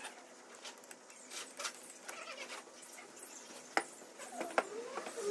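Light clicks and metal taps as a BMW E30 333i alternator's housing and rotor are handled and fitted together by hand, with two sharper clicks near the end and a faint squeak.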